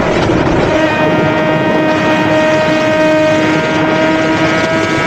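Suzuki GSX-R1000's inline-four engine running at high, steady revs, with wind rushing over the microphone. The engine note wavers briefly about half a second in, then holds steady again.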